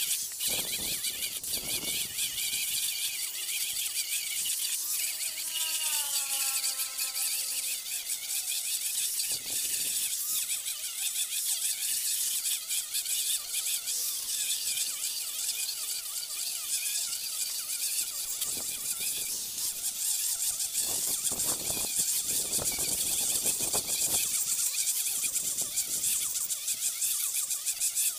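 Handheld electric disc sander running steadily as its sanding pad is worked across hardwood slats.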